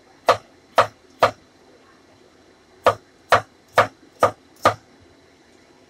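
Chinese cleaver chopping through a cucumber onto a wooden chopping board: three sharp knocks, a pause of about a second and a half, then five more, about two a second.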